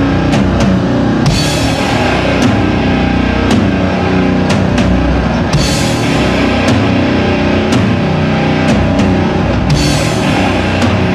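Rock music with a steady drum-kit beat and cymbal crashes, loud and dense, in a heavy-metal style.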